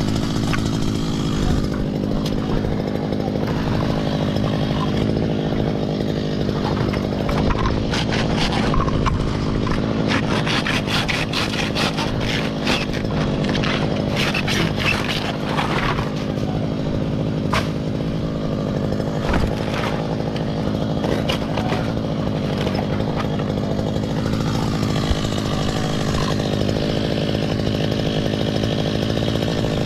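Chainsaw engine idling steadily. Through the middle comes a run of sharp chops and cracks as a machete hacks at the stems of a coconut bunch in the palm's crown.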